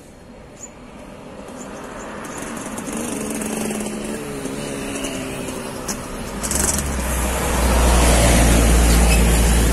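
Diesel engine of a loaded Hino 500-series truck coming up through a curve, growing steadily louder. It passes close by about eight seconds in with a deep, heavy rumble and tyre noise.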